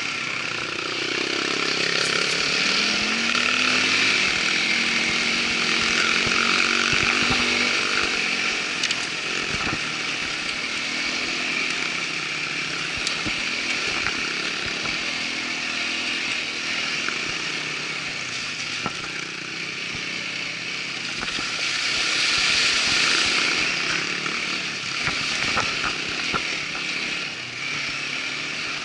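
Irbis ATV 200 quad bike's 200 cc single-cylinder engine running under way, its pitch rising and falling with the throttle, over a steady hiss with scattered knocks.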